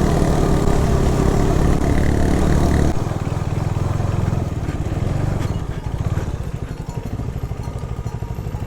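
Motorcycle engine running under throttle, then about three seconds in the revs drop suddenly and it settles into an even, rapidly pulsing low-speed run.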